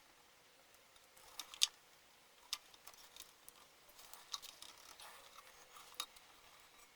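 Faint, irregular clicks and taps of hand work on small parts: old fuel lines and a rubber fuel-tank grommet being worked loose from a two-stroke tiller's fuel tank. The sharpest click comes about one and a half seconds in.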